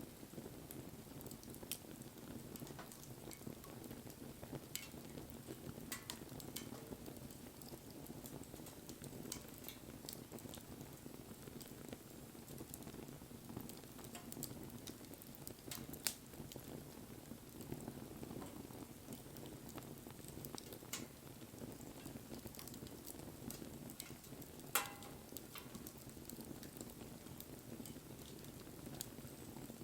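Wood bonfire burning: a faint, steady low rush of flame with scattered sharp crackles and pops, two of them louder, about 16 and 25 seconds in.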